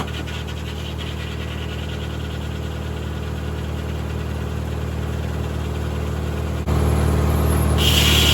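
Tractor engine running steadily as it drives a circular sawmill. About two-thirds of the way in the sound suddenly gets louder, and near the end a high whine joins in.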